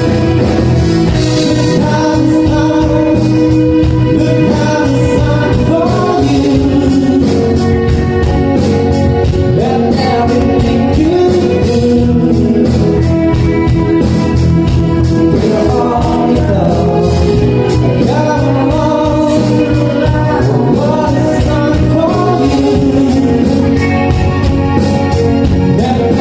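A live band playing a song, with a singer's voice over the instruments and a steady beat.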